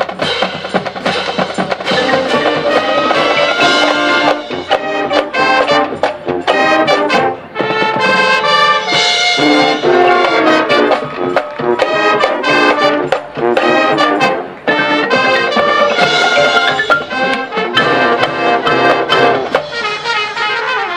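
High school marching band playing, its brass section in front with drums underneath: held brass chords broken by short, punched notes, with two brief drop-offs in the middle.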